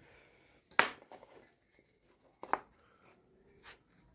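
A wooden dowel rod being laid onto a glued cabinet door panel: two sharp wooden knocks, the first the louder, and a lighter click near the end, with faint rubbing between.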